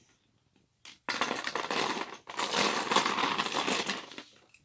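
Small plastic LEGO minifigures clattering and rattling as they are handled and sorted into a plastic storage drawer, in two stretches: a short one about a second in and a longer one of about two seconds.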